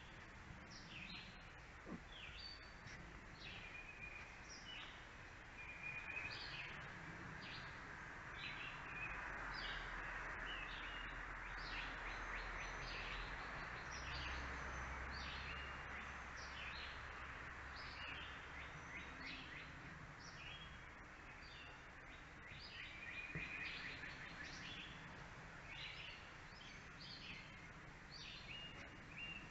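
Small birds chirping over and over, with a steady rushing noise that swells in the middle and fades again.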